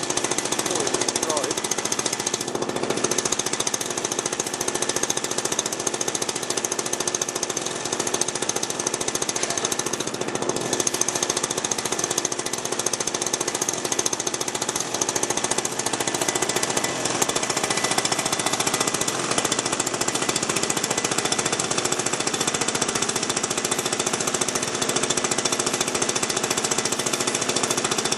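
Engine of a large-scale radio-controlled model aircraft running steadily with its propeller turning, a rapid even pulsing.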